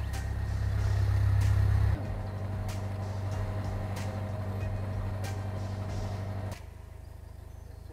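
A narrowboat's diesel engine running steadily while cruising along the canal. It is louder inside a brick tunnel at first, then drops in level about two seconds in and again near the end.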